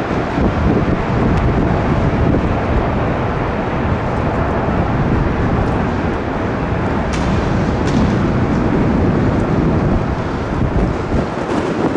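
Jet airliner's engines rumbling steadily, with wind buffeting the microphone.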